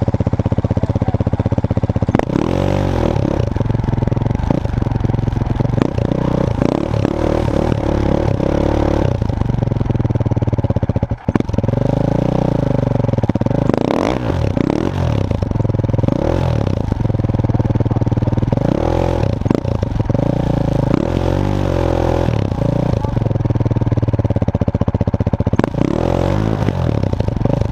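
Enduro dirt bike engine revving in repeated bursts, its pitch rising and falling over and over as the bike is worked up rough, rocky ground, with clattering from the bike over the rocks. The engine sound drops out very briefly about eleven seconds in.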